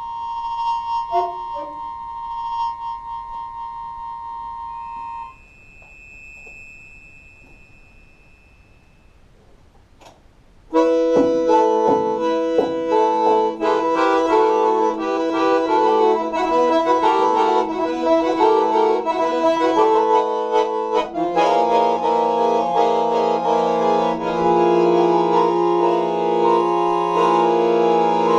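Solo accordion: a held high note, then a soft, quiet passage with a faint high held tone. About ten seconds in it bursts into loud full chords and fast runs over a pulsing bass, and later settles into loud held chords over a sustained bass note.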